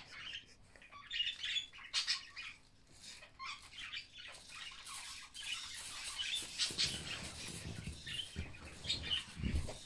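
Littlebits Space Rover's small speaker playing a chirpy electronic sound effect: quick, high twittering chirps and squeaks, with a low rumble joining in over the last few seconds.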